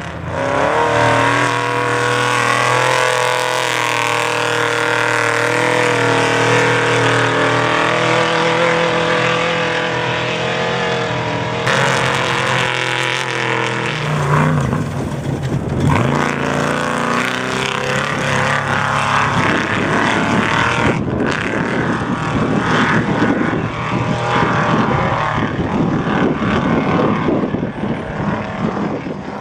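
Off-road race truck engine running hard, its note held fairly steady with small rises and falls for the first half. About halfway the pitch dips and climbs again, and the sound then turns rougher and noisier with many short knocks and rattles.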